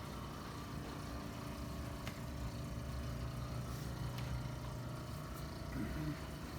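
A steady low mechanical hum that starts about half a second in and stops about five seconds in, with a couple of faint clicks.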